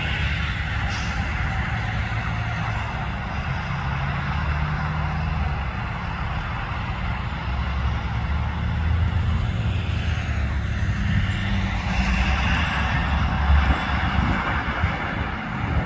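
Steady low diesel rumble mixed with road traffic: cars and trucks on the road beside the track and a distant diesel locomotive approaching.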